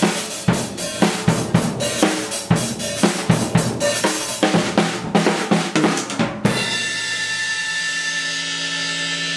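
Drum kit being played: a quick beat of snare, bass drum and cymbal hits. About six and a half seconds in the hitting stops and a steady ringing holds for the rest.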